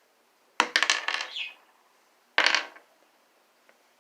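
Small hard pieces of a broken bird feeder clattering and clicking as they are handled and set down, in two bursts: a longer rattle about half a second in, then a shorter clack a second later.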